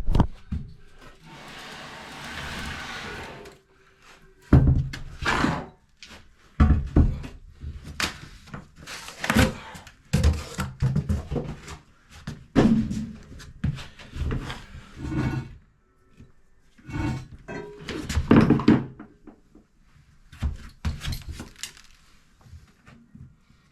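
Irregular series of knocks and clunks, about a dozen over the stretch, with a short rushing hiss from about one to three and a half seconds in.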